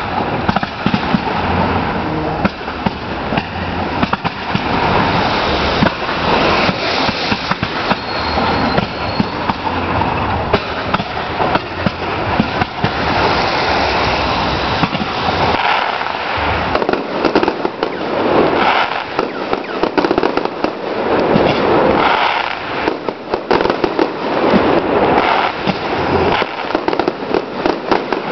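Fireworks display: a dense, unbroken run of bangs and crackle from many bursting shells, several a second.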